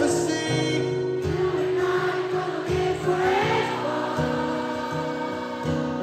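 Live rock band performance: strummed acoustic guitar and band backing under a singing voice, with a choir-like mass of voices.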